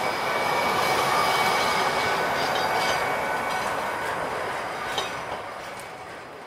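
Gornergrat Bahn electric cog-railway train passing close by, its running noise loudest in the first few seconds and then fading as it pulls away, with a steady high whine and a sharp click about five seconds in.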